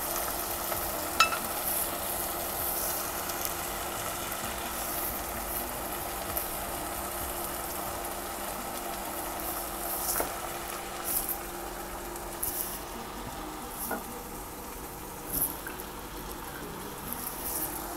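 Canned tuna with tomato and onion sizzling in a nonstick wok on an induction cooktop, with scattered pops and a faint steady hum underneath. A wooden spatula stirs it at first.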